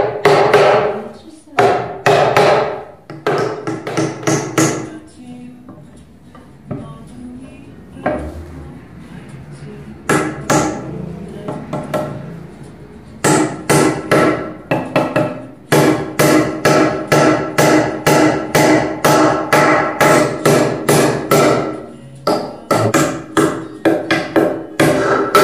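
Hammer blows on a Windsor-style chair under assembly. A few mallet strikes seat the turned legs in the seat, then after a pause a small hammer taps in rapid runs of about two strikes a second, each with a ringing tone, driving the wedges into the leg tenons.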